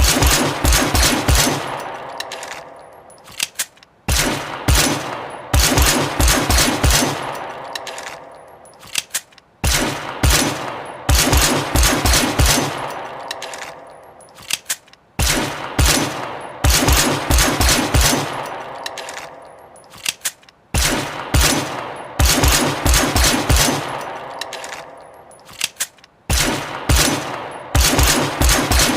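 Looped sound effect of short bursts of rapid, sharp bangs, recurring about every five to six seconds, each burst trailing off in a long ringing decay.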